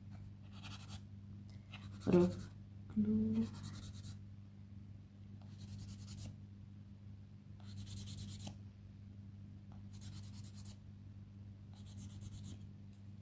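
Nail buffer block rubbed back and forth across a fingernail in short spells of quick strokes, a dry scratchy rasp coming every second or two, with a steady low electrical hum underneath.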